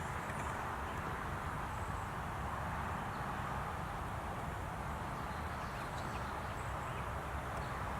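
Steady outdoor background noise, an even hiss with a low rumble under it, with a few faint, short high chirps scattered through it.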